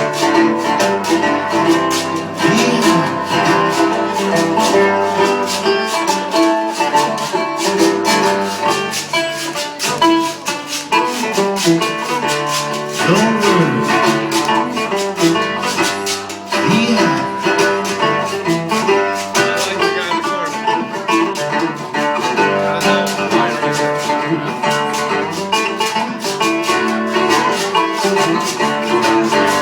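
Live acoustic guitar strumming with a shaker keeping the rhythm.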